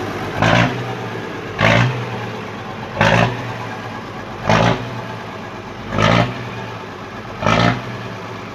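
FNM 180 truck's diesel engine idling and blipped six times with short throttle stabs, about one every second and a half, settling back to idle between each.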